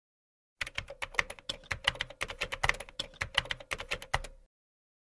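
Rapid typing on a keyboard: a run of quick, irregular keystroke clicks lasting about four seconds, with a faint steady hum beneath. It starts about half a second in and stops abruptly.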